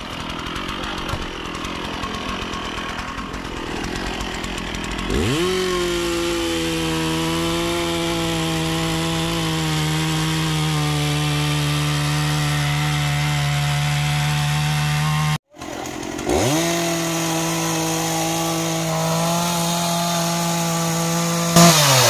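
Stihl MS 460 two-stroke chainsaw revving up to full throttle and cutting into a green jackfruit trunk, its engine note held steady under load. It stops abruptly, revs up again about a second later for another steady cut, and drops back near the end.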